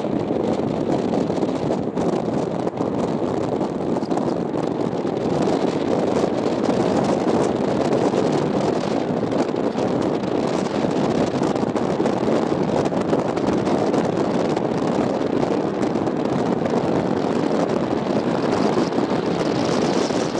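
Steady wind and road noise from a moving car, the wind buffeting the microphone.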